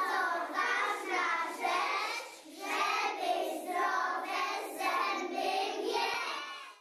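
A group of young children singing together without accompaniment, stopping just at the end.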